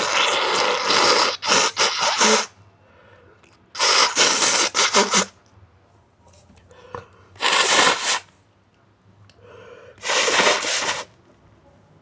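A person blowing their nose hard into a tissue four times. The first blow is the longest and breaks up briefly; the other three are shorter.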